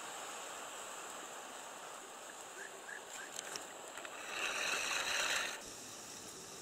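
Steady outdoor hiss by the water, with a few faint short chirps, then a louder rush of noise about four seconds in that lasts about a second and a half and stops suddenly.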